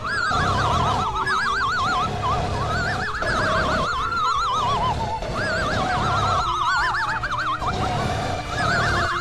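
Music with a steady beat, over which a high, fast-quavering cry repeats again and again, each one wobbling rapidly and often sliding down in pitch.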